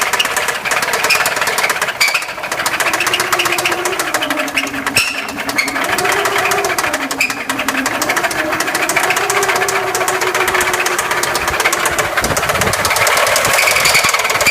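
2004 Subaru Forester XT's turbocharged 2.5-litre flat-four engine running with a rapid, continuous ticking knock, the unidentified noise the owner is chasing; a test of the timing belt tensioner did not point to it. In the middle a wavering tone rises and falls in pitch over the running engine.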